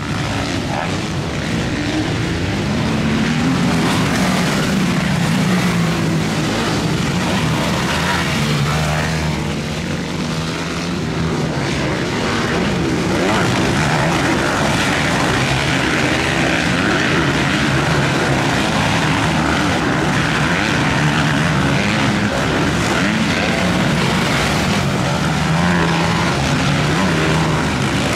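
Motocross bike engines running on a dirt track, revving up and easing off so the engine note keeps rising and falling, with more than one bike heard at once.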